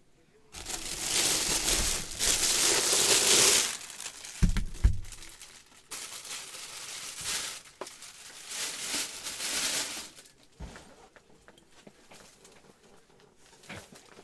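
Packaging crinkling and tearing as it is handled and unwrapped, in two long stretches of rustling. A couple of low thumps come about four and a half seconds in, and a single knock near the end.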